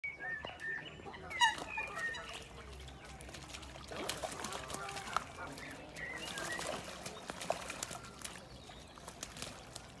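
Two coots fighting on the water, splashing and thrashing, with short bird calls, most of them in the first couple of seconds.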